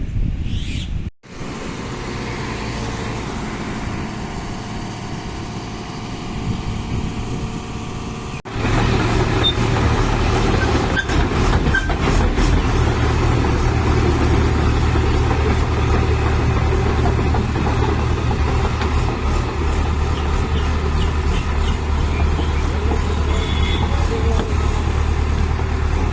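Engine of a heavy machine running steadily. The sound breaks off briefly about a second in and changes abruptly about a third of the way through, after which it is louder, with a steady low hum.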